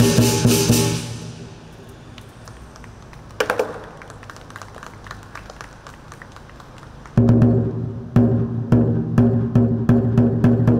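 Lion dance percussion band of big drum, gong and cymbals: a crash at the start rings away into a quiet stretch of light taps with a single strike about three and a half seconds in, then the full band comes back in loud about seven seconds in, the gong ringing under regular drum and cymbal beats.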